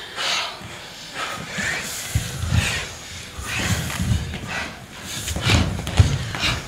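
Performers breathing hard in loud, repeated breaths, with thuds of hands, knees and feet on a stage floor as they move and crawl; the loudest thud comes near the end.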